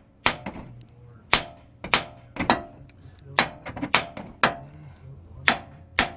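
Hammer blows on steel, about ten sharp strikes roughly every half second to a second, each with a brief metallic ring. They land on the steering knuckle to shock the outer tie rod end's tapered stud loose without a pickle fork.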